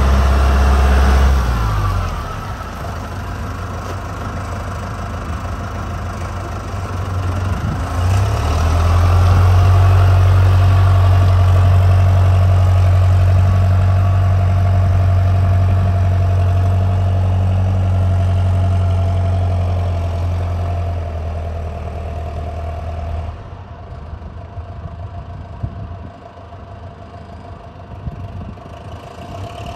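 2007 John Deere 6520 tractor's diesel engine running as it drives: the revs drop about a second and a half in, rise again around eight seconds and hold steady, then the sound fades as the tractor moves off into the distance near the end.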